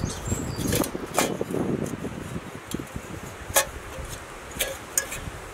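Metal pots and lids from a Kelly Kettle Scout kit clinking against each other as they are pulled apart and set down, with rustling handling. There are a handful of sharp clinks, the loudest a little past halfway with a short ring.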